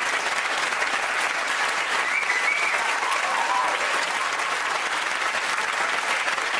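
Studio audience applauding steadily, with a couple of brief voices calling out over it about two to three seconds in.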